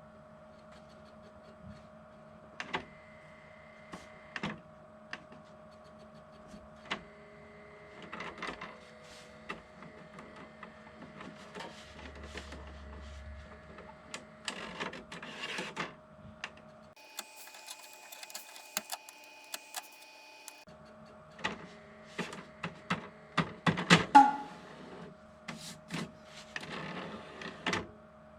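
Small electric mechanism running with a steady whine and irregular clicks and knocks; for a few seconds past the middle the whine changes to a higher tone. The loudest knocks come a few seconds before the end.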